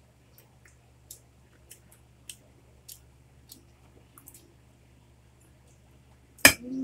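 Spoons and forks tapping and scraping on plates with light, sharp clicks every half second or so. About six and a half seconds in there is one much louder clack, followed by a short voice-like sound.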